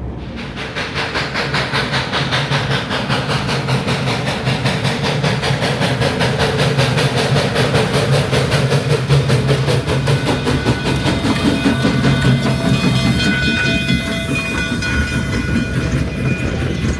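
Train running at speed, a fast, even clatter of wheels over the rails with a steady hiss. In the second half, thin high squealing tones join in.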